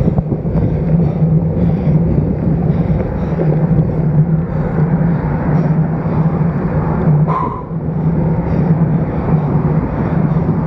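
Steady wind rush and road rumble picked up by a road bike's stem-mounted action camera while riding. A brief higher chirp sounds about seven seconds in.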